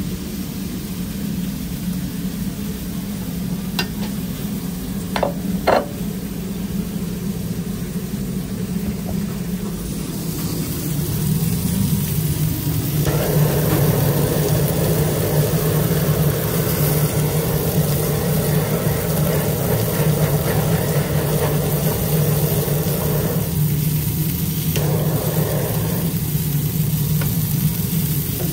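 Handheld butane kitchen blow torch hissing steadily as it melts cheese slices on burger patties on a flat-top griddle; the flame starts about halfway through, cuts off, then gives a short second burst near the end. Under it runs a steady low hum with faint sizzling from the griddle, and a few sharp clicks in the first few seconds.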